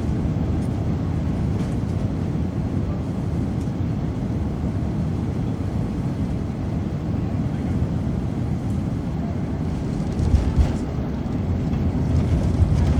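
Boeing 747 jet noise: a steady low rumble without distinct tones, with a couple of brief louder bumps about ten seconds in.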